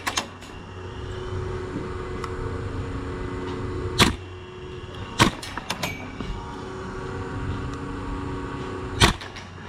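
Airsoft guns firing single sharp shots at uneven intervals: one about four seconds in, a few between five and six seconds, and one near nine seconds, over a steady low hum.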